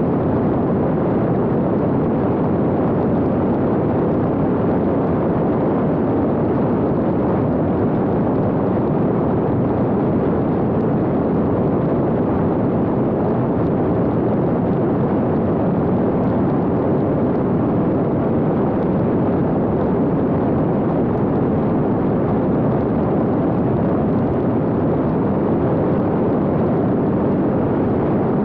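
Steady, unbroken rush of in-flight noise recorded aboard a fixed-wing X-UAV Talon drone: airflow over the onboard microphone together with the drone's propeller.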